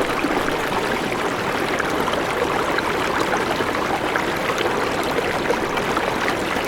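River water running steadily over rocks, an even rushing with small splashes and trickles.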